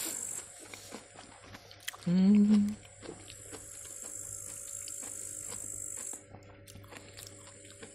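Insects chirring steadily with a high buzz. It fades out about six seconds in and picks up again near the end.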